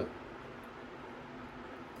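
Quiet room tone: a steady faint hiss with a low hum underneath, and no distinct sounds.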